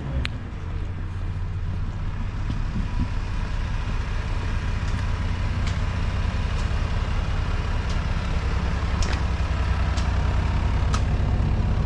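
Construction machine's engine running steadily at roadworks, a low drone that grows a little louder, with a few faint clicks over it.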